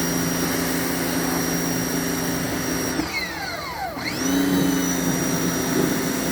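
Pressure washer running with a steady whine and spray hiss. About three seconds in, the whine falls away as the motor winds down, then it rises and runs again about a second later, as when the trigger is let go and squeezed again.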